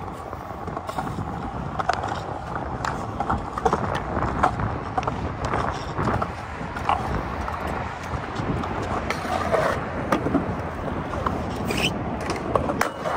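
Stunt scooter wheels rolling on pavement, with repeated clacks, knocks and scrapes from the deck and wheels.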